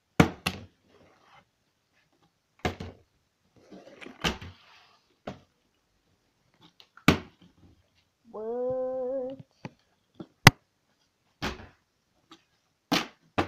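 Plastic water bottle being flipped, landing and knocking on hard surfaces in a string of sharp thuds and clatters, about nine in all. A short hummed note of about a second sounds past the middle.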